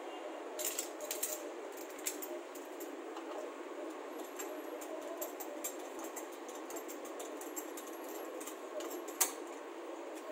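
Small metallic clicks and clinks of a hitch-mount bike rack being fastened into a tow-hitch receiver by hand, with one sharper click about nine seconds in, over a steady background noise.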